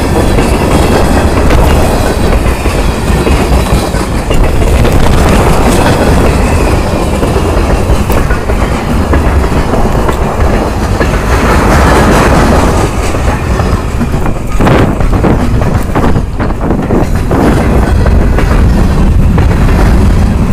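Freight train cars rolling past at close range: a loud, steady rumble of steel wheels on rail with scattered clicks of wheels crossing rail joints, and a sharper knock about 15 seconds in.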